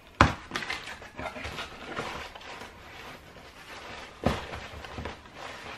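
Handling noises from someone getting out another pair of trainers: steady rustling with small clicks, and a sharp knock about a quarter of a second in and another about four seconds in.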